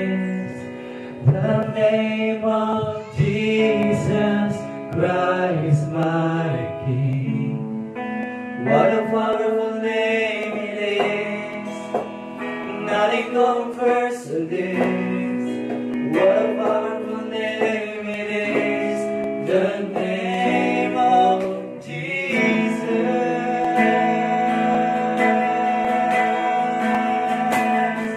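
A man singing a worship song to his own electric guitar accompaniment.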